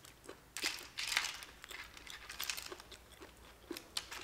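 Cooked blood cockle shells clicking and scraping against each other and a metal tray as fingers pick through them, in a string of small, irregular clicks and rustles, loudest about a second in.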